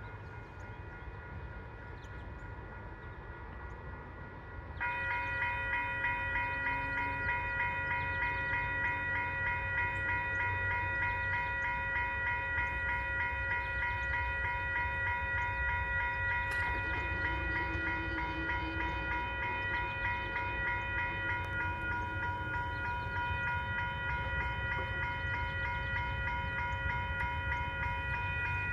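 Railway level-crossing warning bell starts about five seconds in and rings steadily with a fast repeating pulse, activated by an approaching train, over a low rumble.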